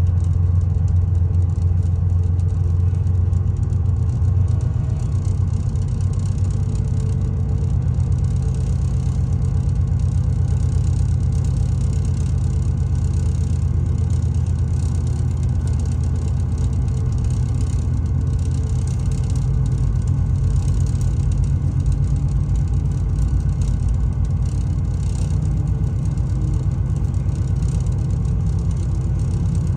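GE diesel locomotive engines running under load as the train gets moving: a steady deep engine rumble whose pitch shifts about two-thirds of the way through, as the throttle is notched up.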